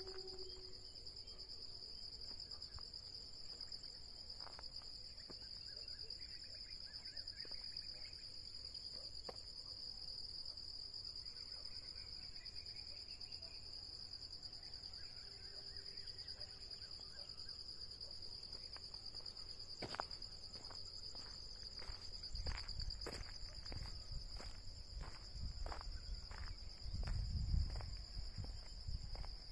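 Insects trilling in a steady, high-pitched chorus, with a few faint bird chirps. Low rumbling and scattered clicks come in during the last third.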